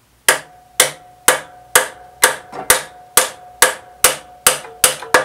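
Plastic mallet tapping the metal drill press table about a dozen times, roughly two sharp blows a second, with a ringing tone hanging on after each blow. The table's lock is loosened and it is being knocked over to bring it square to the spindle.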